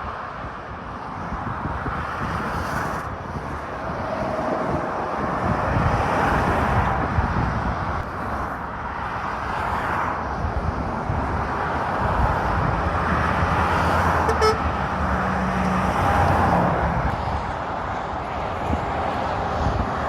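Motorway traffic, lorries and cars, passing at speed: continuous tyre and engine noise that swells and fades every few seconds as each vehicle goes by.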